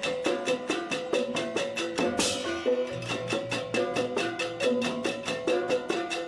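Balinese gamelan percussion music: fast, even strikes of small cymbals over a pattern of pitched gong-chime notes, with a cymbal crash about two seconds in.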